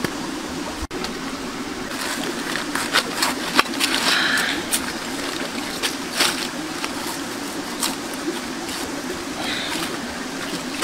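Large knife cutting through a whole pineapple's rind and flesh: a series of short, crisp cutting strokes over a steady background rush.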